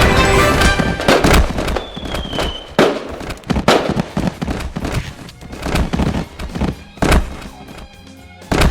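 Loud music with a series of heavy booms and bangs striking at irregular intervals.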